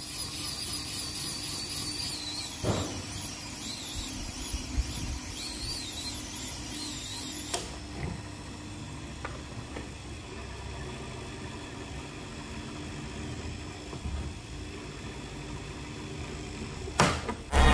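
Homemade belt-driven bench drill's electric motor running steadily while the bit cuts into a metal plate. A high, wavering squeal from the cut stops abruptly about halfway, and the motor hum runs on.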